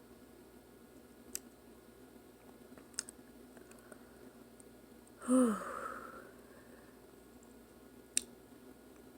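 A woman's single hiccup about five seconds in, a short sharp vocal catch with a quickly falling pitch, trailing off into a breath. A few faint clicks are heard around it.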